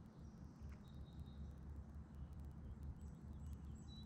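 Faint, thin, high bird calls: a few short whistled notes, some gliding down, about half a second in and again near the end, over a steady low rumble.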